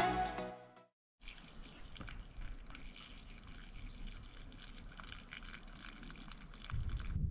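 Background music fading out within the first second, then faint outdoor ambience with light crackling ticks. A low rumble rises near the end.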